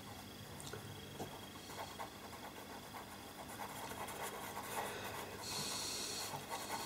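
Pastel pencil scratching faintly across textured pastel paper in short shading strokes, with a louder stretch of hissy strokes about five and a half seconds in.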